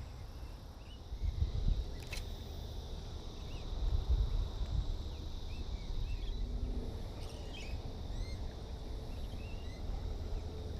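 Outdoor ambience of short scattered bird chirps over a steady high insect drone, with low rumbling on the microphone that swells twice.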